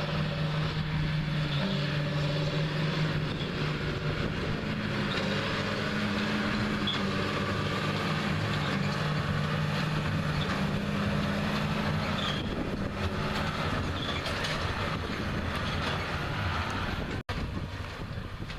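Tractor and large square baler running steadily, the tractor's diesel engine hum over the clatter of the baler; the engine pitch fades out about two-thirds of the way through as the rig slows to a stop.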